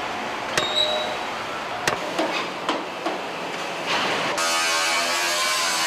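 Factory sound effects: a steady hiss with scattered sharp metal clanks and knocks. About four and a half seconds in, a louder, denser steady layer takes over.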